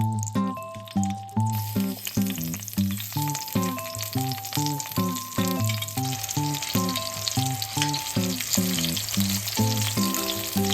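Food sizzling in a hot frying pan, starting about a second and a half in, under background music with a steady beat.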